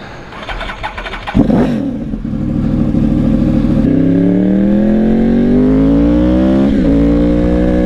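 Yamaha R1 motorcycle's inline-four engine pulling away from a stop. A sudden burst of throttle comes about a second and a half in, then the revs climb steadily. Near the end a brief break and drop in pitch marks an upshift before the revs rise again.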